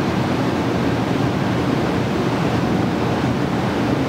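Steady rushing noise of a Kyushu Shinkansen 800 series train standing at the platform, its equipment running while stopped.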